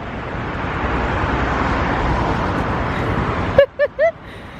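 Road and traffic noise, a rumbling hiss that swells, then cuts off suddenly about three and a half seconds in, followed by a few short vocal sounds.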